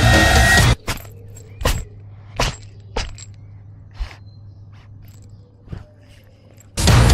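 A cat's paws scraping and raking soil and dry leaves: about six short scrapes, spaced unevenly, over a faint steady low hum. Electronic music plays at the start and comes back shortly before the end.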